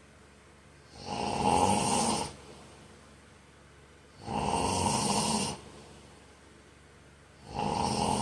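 A man snoring in his sleep: three long snores about three seconds apart with quiet breathing in between, the third starting near the end.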